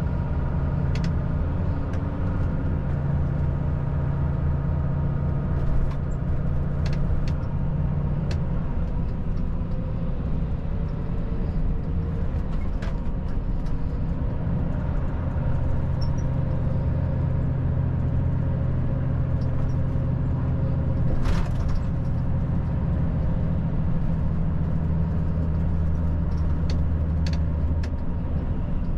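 Volvo FH 540 truck's six-cylinder diesel engine running steadily while driving, with tyre and road noise and a few light clicks. The engine hum eases slightly for a few seconds partway through, then picks up again.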